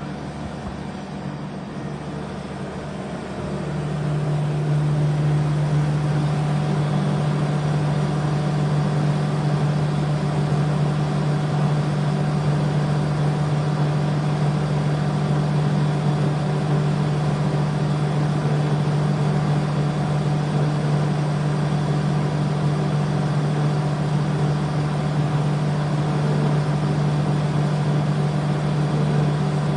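A parked refrigerated truck running with a steady low drone, which steps up louder about three and a half seconds in and then holds even.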